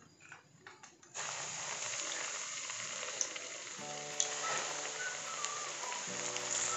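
Hot oil in a wok sizzling steadily as flour-coated chicken wings are put in to deep-fry. The sizzle starts suddenly about a second in.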